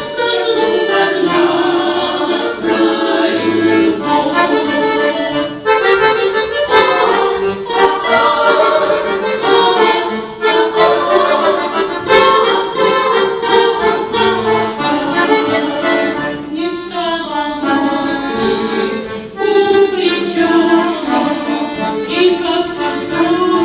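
Accordion playing an instrumental passage of a Russian folk song, with notes changing throughout.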